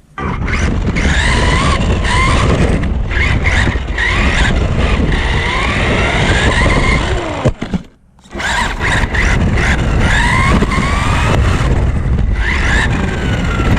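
Losi Mini B RC buggy driving, heard up close from a camera taped onto the car: its electric motor whines up and down in pitch with the throttle over a loud rumble of wheels and wind. It stops for a moment about eight seconds in, then takes off again.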